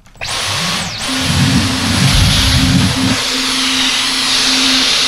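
Dyson V15 Detect cordless stick vacuum switched on just after the start and running: a loud rush of air with a steady high whine from the motor.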